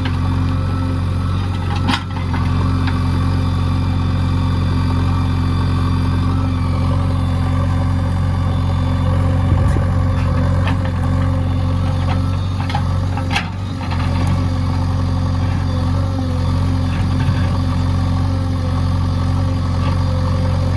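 JCB backhoe loader's diesel engine running steadily at a low, even speed. Two brief knocks come through, about two seconds in and again about halfway through.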